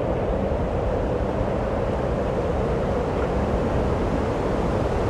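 A steady rushing noise with a deep rumble beneath it, unchanging in level.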